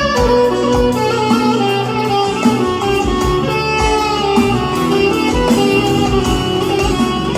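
Band music: a guitar playing the melody over a bass line and a regular drum beat.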